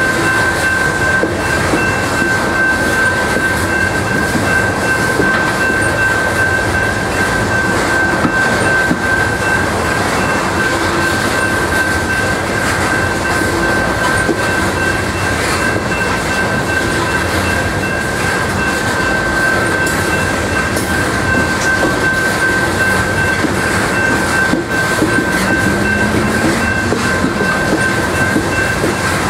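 Coal hopper cars of a freight train rolling past on the rails: a steady rumble and clatter of wheels on track, with a steady high-pitched squeal.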